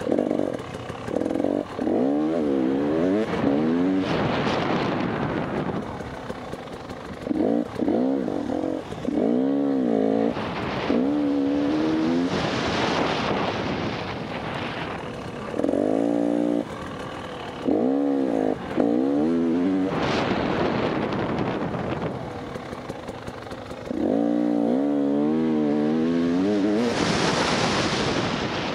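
KTM 300 EXC TPI two-stroke enduro engine revving in repeated bursts of throttle, its pitch rising and falling quickly, with wind rushing between the bursts.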